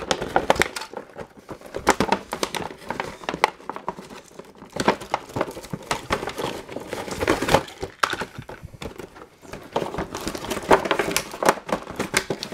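Cardboard box and clear plastic blister tray of a toy train pack being worked apart by hand: irregular crinkling, rustling and scraping with scattered sharp clicks.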